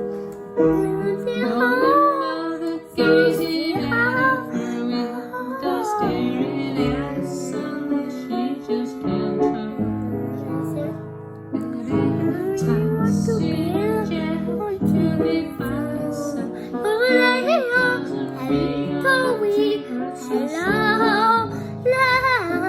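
A woman and a young girl singing a song over piano accompaniment.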